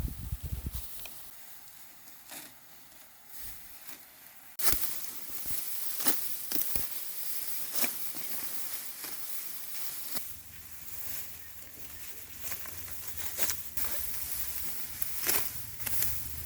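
Irregular crisp snaps and rustling, consistent with rice stalks being cut and handled by hand; they start about a third of the way in. A low steady hum joins in past the middle.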